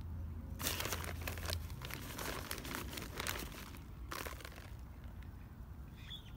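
Loose potting soil being scooped and crumbled by hand in a fabric grow bag. It rustles and crackles for about three seconds, then gives one short rustle again about four seconds in.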